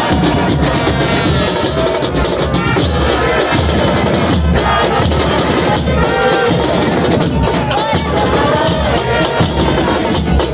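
Football supporters chanting a terrace song together over the steady beating of bass drums and other percussion from the fans' band.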